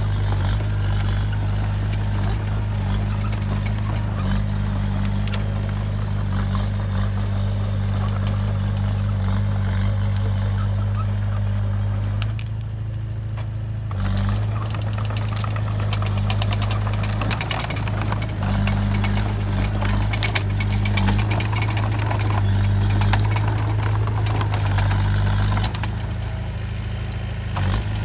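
Heavy construction machine's diesel engine running steadily with a deep hum. There is a brief drop in the engine's upper noise about twelve seconds in, then a dense run of clattering and rattling over much of the second half.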